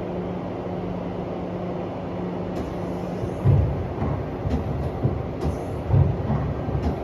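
Mori Seiki ZT 2500Y CNC lathe running: a steady mechanical hum with a low tone, joined about halfway through by irregular low, heavy thuds every half second to a second.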